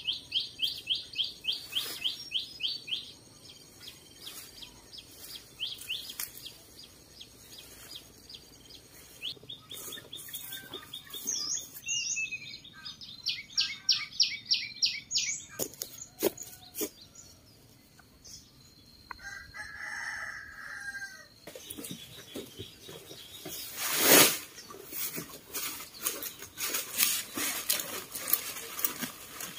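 Farmyard ambience: small birds chirping in fast, repeated runs, and a rooster crowing once about twenty seconds in. A brief loud thump comes a few seconds later.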